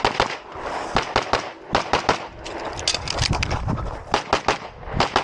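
Pistol fire during a practical shooting stage: rapid strings of sharp shots, several a second, broken by short pauses.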